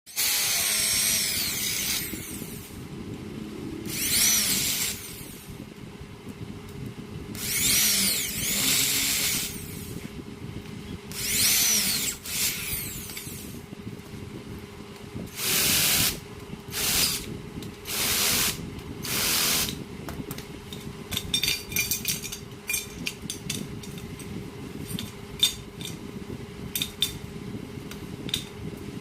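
Electric drill boring holes in aluminium, in repeated bursts of a second or two as the bit bites the metal with a high, shifting whine. A steady hum runs underneath. The last several seconds bring a run of light clicks and taps.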